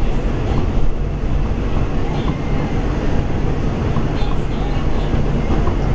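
New York City subway 2 train heard from inside the car as it runs along the elevated line: a steady low rumble, with a few faint clicks from the wheels.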